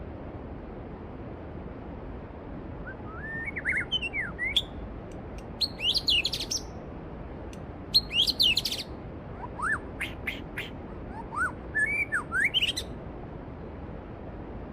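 A songbird singing in short phrases of rising and falling whistled notes over the steady rush of a flowing valley stream. The song starts a few seconds in and stops shortly before the end.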